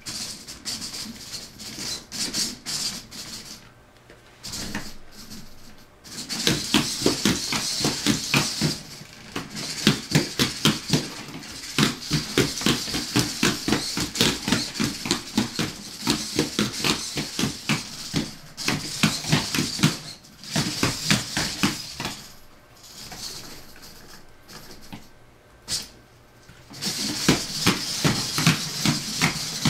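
Hobby servos of a 24-servo hexapod robot whirring and chattering as its legs step, with rapid clicks of the feet and joints on a hardwood floor. It gets loud and busy about six seconds in, eases for a few seconds about three-quarters through, then picks up again near the end.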